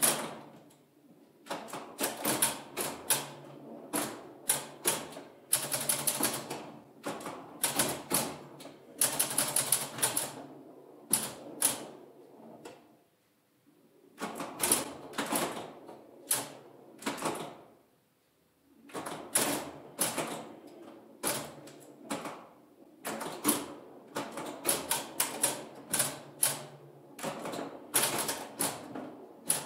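Bally Six Sticks electromechanical pinball machine (1965) in play: rapid clusters of sharp mechanical clacks from its solenoids, relays and score reels as the ball is struck. There are two brief lulls, one about halfway through and one a few seconds later.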